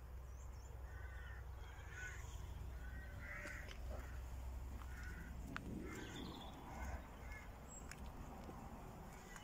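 Crows cawing, a run of short caws about one a second, with a couple of sharp clicks partway through.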